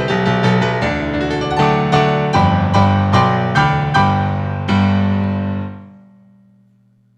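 Solo piano playing the last bars of a piece, struck chords at a steady pace, ending on a held chord about five seconds in that dies away a second later.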